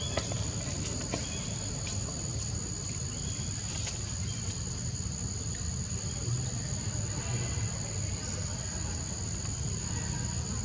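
Steady high-pitched insect chorus droning without a break, over a low rumble, with a few faint clicks and short chirps.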